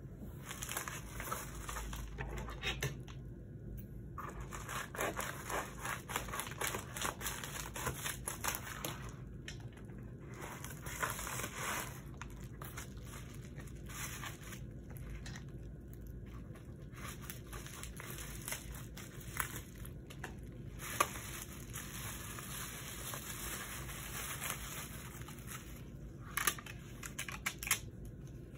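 Plastic shipping mailer being torn open and its bubble-wrap packing crinkled and handled in stretches, with pauses between. A few sharp clicks come near the end.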